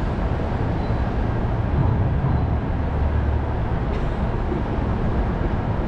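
Disneyland parking tram vehicle noise: a steady low engine and road rumble with no distinct events.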